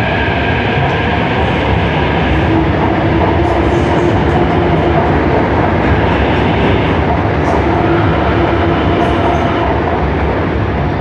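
São Paulo Metro Line 5 Frota P electric train pulling out of the station past the platform: a loud, steady rumble of wheels on rail with a faint high whine that fades out about two seconds in.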